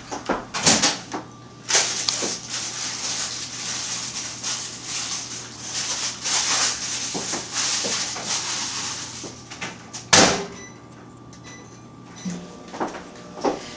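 Spoons scraping and stirring melted chocolate in bowls, a steady scratchy noise over a low hum, then one loud clunk about ten seconds in.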